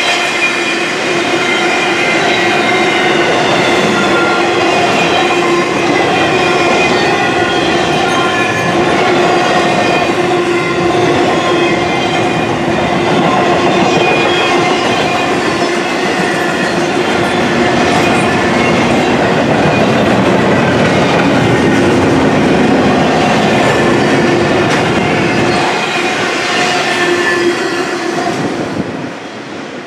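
Double-stack intermodal freight cars rolling past close by, the wheels clattering on the rails with a steady squeal running under it. The sound falls away about 28 seconds in as the end of the train passes.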